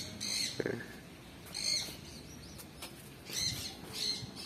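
Faint, short, high chirps that fall in pitch, coming in small clusters every second or two.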